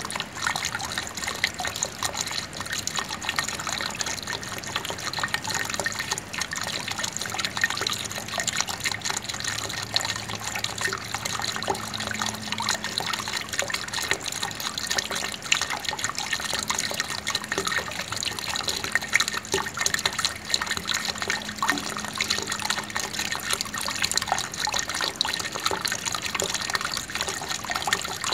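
Water running steadily, trickling and splashing with many small drops.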